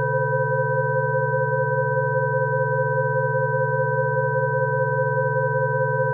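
Rife frequency tone track: several steady electronic sine tones, from low to fairly high, sounding together and unchanging.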